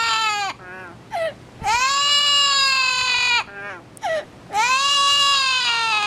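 Green Amazon parrot giving loud, drawn-out cries, each about two seconds long, rising in pitch and then slowly falling, with short higher yelps between them. A cry is ending as the sound begins, and two more full cries follow.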